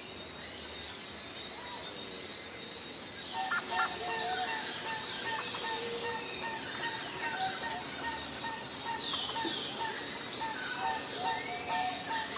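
Wild birds chirping and calling, with scattered sharp chirps at first. About three seconds in it grows busier and louder: many overlapping calls, a short note repeated about twice a second, and a steady high buzz underneath.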